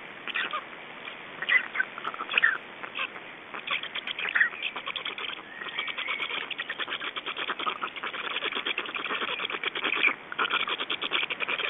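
Black stork chicks begging at the nest as the adult feeds them: a fast, rhythmic chattering that starts about four seconds in and keeps going. Songbirds chirp a few times before it.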